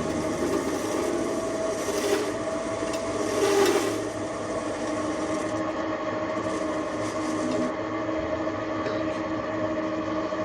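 TV-16 tabletop lathe running with a steady motor hum, the cutting tool scraping the spinning nut in two short bursts about two and three and a half seconds in.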